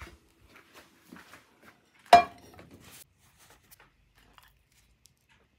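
Kitchenware being handled: a few light clicks, then one sharp metallic clank about two seconds in that rings briefly.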